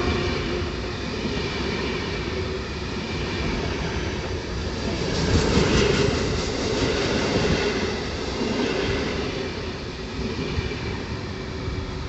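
A train passing on the line, its wheels rumbling along the rails in a steady run of noise that swells about five seconds in and eases off afterwards.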